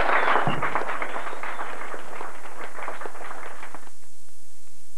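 Clattering, ringing sound of a live punk band in a small hall, thinning out. It cuts off suddenly about four seconds in as the recording ends, leaving only video-tape hiss.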